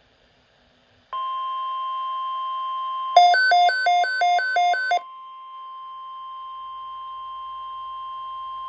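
NOAA Weather Radio's 1050 Hz warning alarm tone, a steady electronic tone starting about a second in. This is the alert that switches receivers on ahead of a tornado watch announcement. From about 3 to 5 seconds a louder two-note warble plays over it, switching between a low and a high pitch about three times a second.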